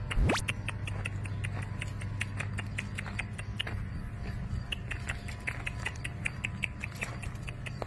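Rapid, fairly even clicking, about five or six ticks a second, over a steady low hum that fades after the middle; a brief loud rising whoosh comes right at the start.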